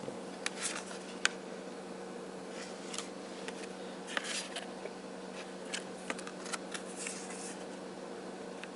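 Small paper cards and plastic disc packaging being handled: scattered light clicks and short rustles, over a steady low hum.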